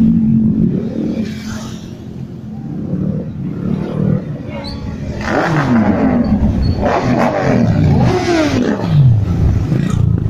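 Motorcycle engines running as bikes ride past close by. From about five seconds in, several bikes pass one after another, each engine's pitch dropping as it goes by.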